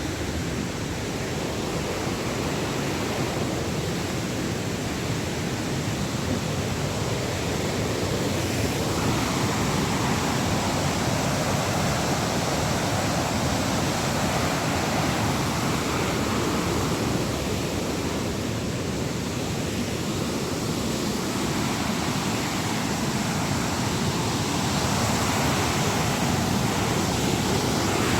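Waterfall: a steady rush of falling water, growing a little louder over the first ten seconds or so.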